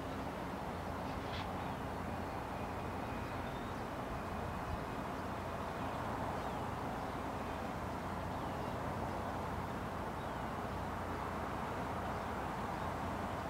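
Steady outdoor rail-yard and city background: a low rumble under a broad hiss of distant traffic and machinery, with faint bird chirps now and then.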